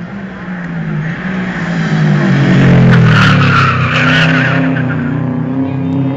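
A rally car's engine is driven hard through a street corner, loudest about three seconds in, with tyres squealing in the middle of the turn. The engine drops in pitch into the corner, then revs up again as the car accelerates away.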